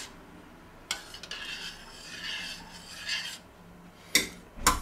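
Small metal spoon stirring thick pumpkin cream soup in a stainless steel pot, scraping against the pot's bottom and sides. A click about a second in and two sharp metallic clinks near the end.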